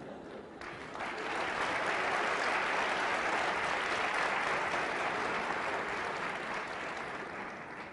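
Audience applauding after a joke in a lecture hall. The applause builds about a second in, holds steady, and fades near the end.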